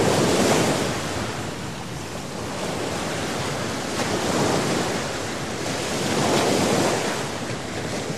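Sea waves washing onto a beach, a steady rush of surf that swells and eases every few seconds, with wind on the microphone.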